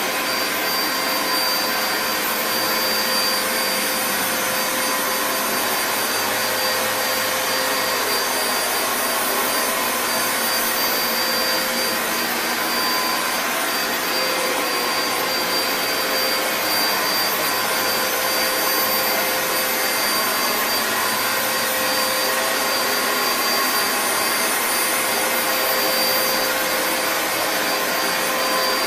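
Dyson DC07 Animal bagless upright vacuum cleaner running steadily: a constant rush of air with a fixed motor whine.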